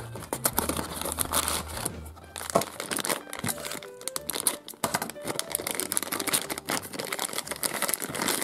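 Thin plastic toy bag crinkling and crackling up close as it is handled, snipped with scissors and pulled open, after a small cardboard box is opened.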